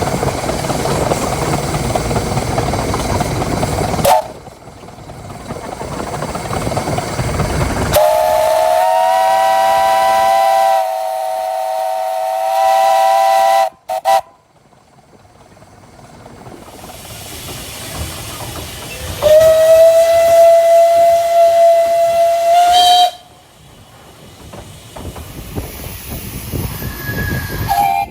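Steam locomotive whistles, with steam hissing and running-train noise between them. A chime whistle sounds several notes together for about five seconds, dipping briefly partway. A single-note whistle follows for about four seconds, rising slightly in pitch, and a short higher toot comes near the end. Abrupt cuts separate the clips.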